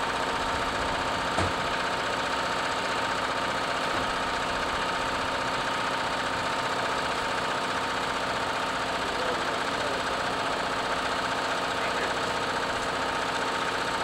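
Utility bucket truck's engine idling steadily, with one short click about a second and a half in.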